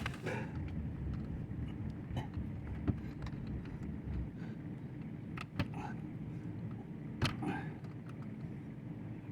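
Steady low machine hum, with a few sharp metal clicks of pliers or a valve tool working the bar gun's flow-control valves, some followed by a short squeak.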